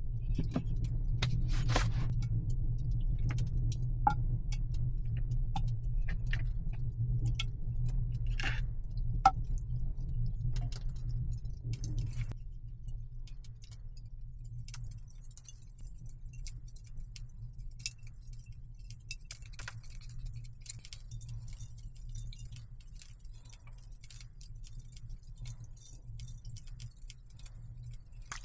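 Scattered light clicks and metallic clinks over a steady low rumble. About halfway through the rumble drops and a faint high hiss sets in.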